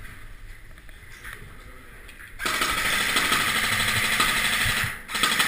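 Airsoft electric gun firing full-auto: a rapid, even rattle starts suddenly about two and a half seconds in, runs for about two and a half seconds, breaks off briefly and starts again at the end.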